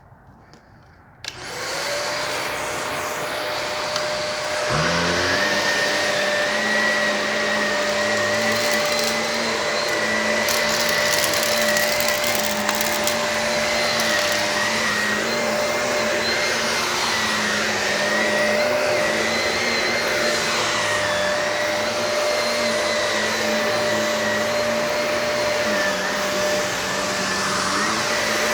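Shark vacuum cleaner switching on about a second in and running steadily with a high whine, working an old carpet. A lower note joins a few seconds after it starts.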